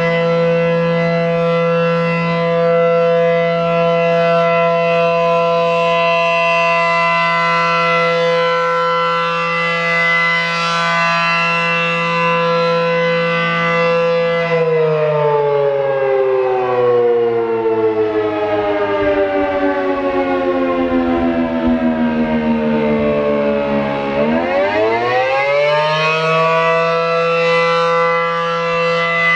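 A.C.A. P-10 electromechanical tornado siren, reverse wired, sounding its fire signal: a steady wailing tone for about fourteen seconds, then the pitch slowly falls for about ten seconds and climbs quickly back to full pitch.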